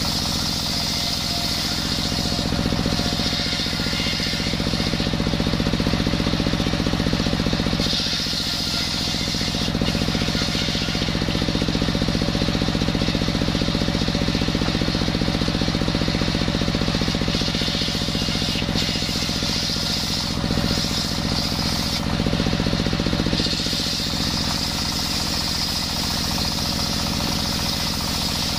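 Engine-driven table circular saw ripping a coconut-wood plank. The engine runs steadily underneath, while the blade's high scream swells and eases several times as the wood is pushed through the cut.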